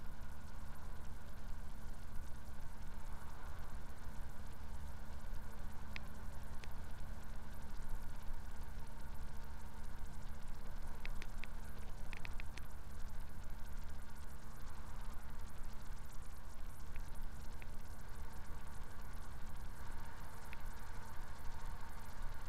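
Kenworth truck's diesel engine droning steadily at cruise, heard inside the cab with road noise. A few faint ticks sound over it, most of them about halfway through.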